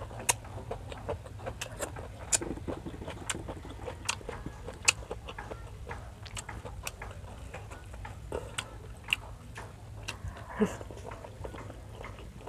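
Close-miked mouth sounds of someone eating grilled squid with rice and seaweed: irregular wet clicks and smacks of chewing, a few of them louder. A brief low hum comes from the mouth a little before the end, over a steady low background hum.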